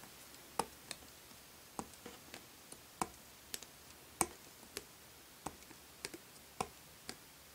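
Plastic cutters snipping along a plastic K'nex rod, cutting away a section: a run of small, sharp snips at an uneven pace, roughly two a second.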